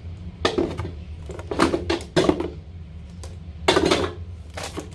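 Slime containers knocking and clattering against each other as they are gathered up and put back, several separate knocks with the loudest near the middle and near the end.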